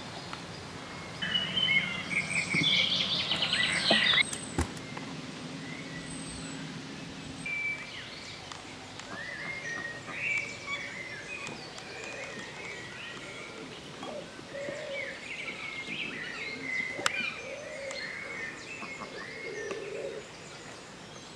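Birds singing and calling in woodland by a lake, with a loud burst of busy chattering calls about a second in, then scattered chirps and a few lower calls later on.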